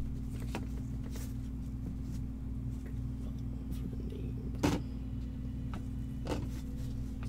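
Steady low hum, with light clicks and rustles of hard plastic graded card slabs being handled; one sharper knock comes about four and a half seconds in.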